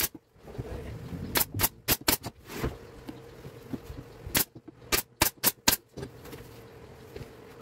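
Pneumatic nailer firing brads into the joints of a plywood box: about ten sharp shots in two quick runs, the first about a second and a half in and the second from about four and a half seconds.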